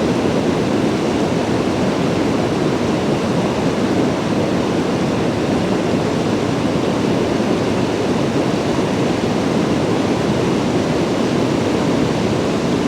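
Steady rush of the Cowlitz River's flowing water, an even noise that holds level throughout.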